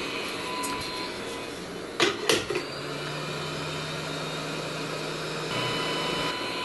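Hot air rework gun blowing steadily, heating a Schottky diode to desolder it from a circuit board. There are two sharp clicks about two seconds in.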